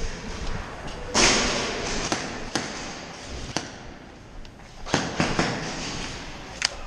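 Airsoft guns firing in a skirmish: a few single sharp cracks spaced irregularly, with two longer, noisier rushes about a second in and about five seconds in.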